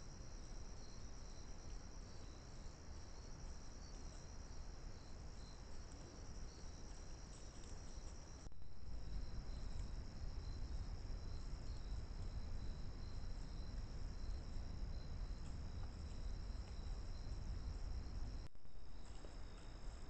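Night insect chorus of crickets trilling steadily and high-pitched, with a second, slightly lower line of quick chirps, over a low rumble. The sound breaks off briefly twice, about eight and a half and eighteen and a half seconds in, where one trail-camera clip ends and the next begins.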